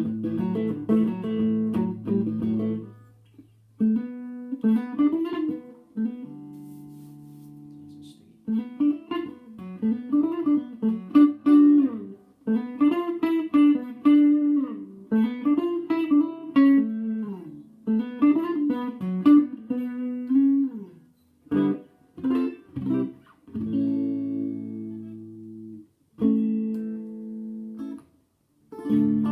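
1983 Tokai Goldstar Sound ST50 electric guitar, a 1956 Stratocaster copy with U pickups, played on its neck pickup with tones full up through a Tokai TA-35 transistor amp. It opens with strummed chords, moves into single-note lead lines with bent notes, and ends on chords with short pauses between them.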